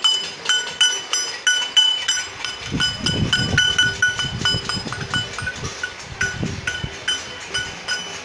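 Stainless-steel bowl beaten with a steel spoon: a steady run of ringing metallic clangs, about two to three a second, growing fainter in the second half.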